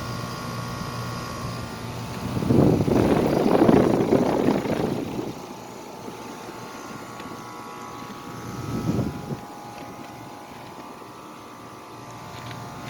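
American Standard Silver Series heat pump outdoor unit running steadily in heat mode, its scroll compressor and fan making a smooth, quiet hum. A louder rushing noise swells up about two seconds in and fades after a couple of seconds, with a shorter one later.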